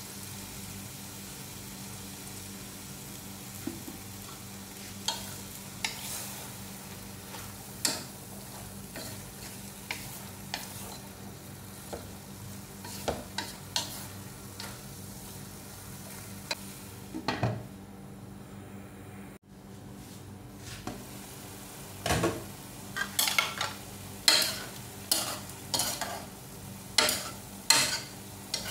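Long beans, bell pepper and lobster balls stir-frying in a nonstick pan with a steady light sizzle, a spatula scraping and tapping against the pan. After a short break about two-thirds through, the spatula strokes get louder and come about twice a second.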